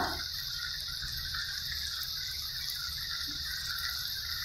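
Chopped onion sizzling in oil in a frying pan: a steady, even hiss.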